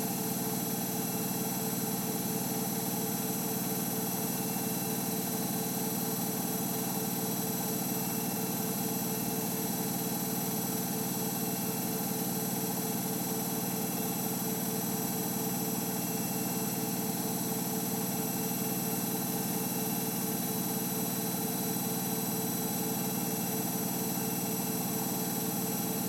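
Samsung Eco Bubble WF70F5E2W2X front-loading washing machine drum spinning at a constant speed in its final 1200 rpm spin: a steady hum and whine that holds its pitch throughout.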